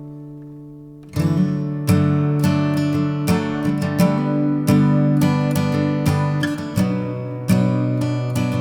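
Background music on acoustic guitar: a held chord rings and fades, then strummed chords start about a second in and continue in a steady rhythm.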